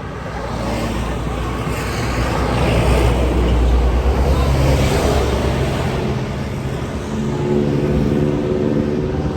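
A large tour bus passing close by on the road: engine rumble and tyre noise build to their loudest about three to five seconds in, then settle into a steadier engine drone.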